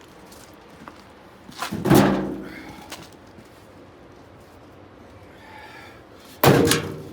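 Two heavy slams about four and a half seconds apart, each followed by a short ringing decay. The second is sharper and more sudden than the first.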